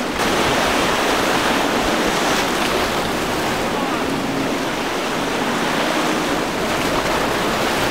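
Steady rush of waves and boat wake with wind noise on the microphone, a faint low engine hum showing through briefly around the middle.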